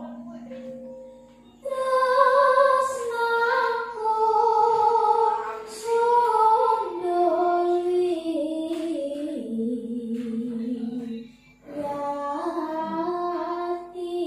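A young female Javanese sindhen singing solo, long ornamented notes that slide from pitch to pitch, with the gamelan silent behind her. A low gamelan note is still ringing out at the start and fades within the first second or so, and the voice pauses briefly near the end.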